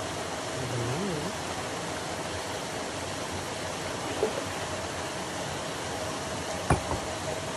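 Steady rush of water running into a fishing pond, with a faint steady hum under it. Near the end, one sharp click as the fishing rod is snatched up from its holder to strike a fish.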